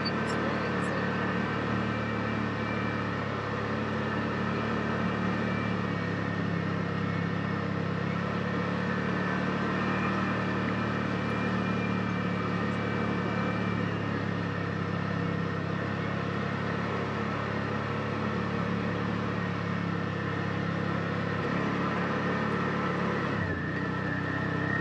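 Side-by-side UTV engine running steadily while driving on the trail. Its pitch drops near the end as the engine slows.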